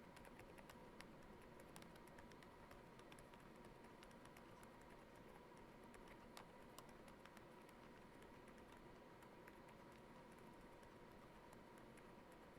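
Typing on a Yunzii YZ98 mechanical keyboard with lubed Outemu Honey Peach V2 switches and foam-modded case: faint, quick keystrokes, denser in the first half and thinning out after about seven seconds.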